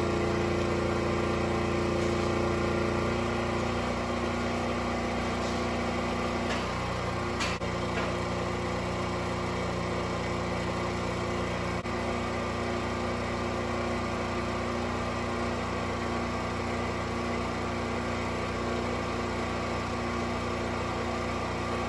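Portable gasoline generator's engine running steadily under a 3000-watt load of two space heaters, with one brief click about seven and a half seconds in.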